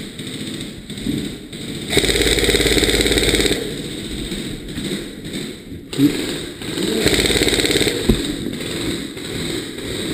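Airsoft electric gun firing full-auto: two rapid buzzing bursts, the first about two seconds in lasting over a second and a half, the second shorter about seven seconds in, with a couple of sharp clicks between and after.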